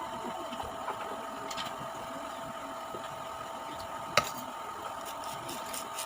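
Chewing and biting crunchy raw jicama, with one sharp crunch about four seconds in and a few lighter ticks after it, over a steady electrical hum.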